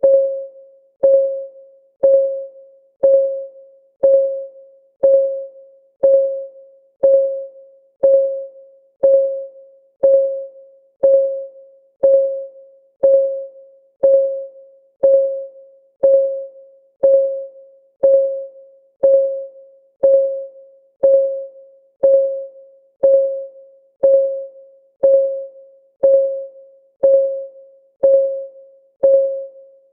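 Countdown timer's clock-ticking sound: one tick every second, even and unchanging, each a sharp click with a short ringing tone that fades quickly.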